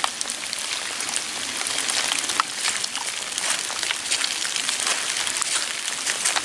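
Steady rain falling, a constant hiss with many separate drops ticking.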